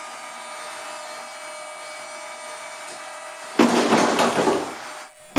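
An RC jet model dropped about 10 cm onto a tabletop: a sudden loud clatter of its landing gear and airframe hitting the table about three and a half seconds in, rattling on for about a second before dying away. Before the drop, only a steady faint hum.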